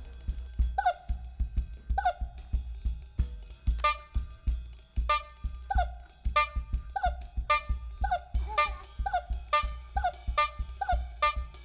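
Instrumental music with a steady drum beat and a short melodic figure that repeats at an even pace. A brighter line of notes joins about four seconds in.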